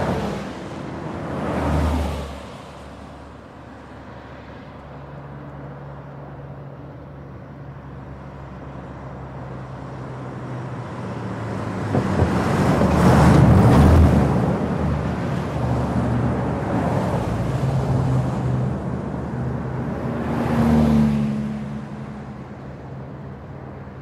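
Fast traffic on a trunk road: vehicles passing at speed, their tyre and engine noise swelling and fading. There are two quick pass-bys at the start, then a longer, louder one that builds to a peak about halfway with a steady low engine hum beneath it, and another pass-by near the end.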